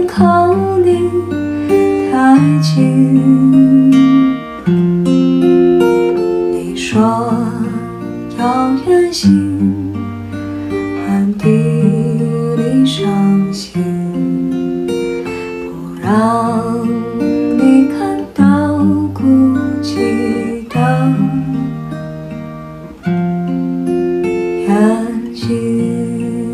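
A woman singing a slow ballad to her own capoed acoustic guitar, playing chords that change every couple of seconds, with sung lines coming and going over the guitar.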